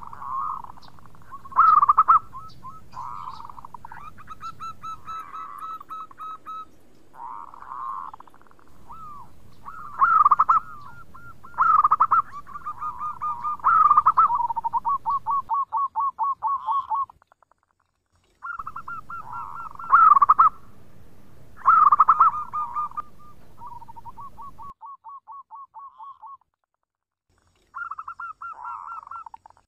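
Zebra dove (perkutut) cooing in repeated phrases. Each phrase opens with a few loud clear notes and runs into a fast rolling trill of short coos. The song breaks off twice.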